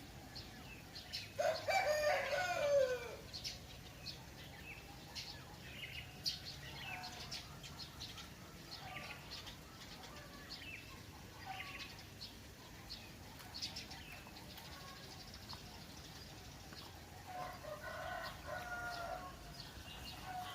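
A rooster crowing loudly about a second and a half in, and again more faintly near the end, while small birds chirp throughout.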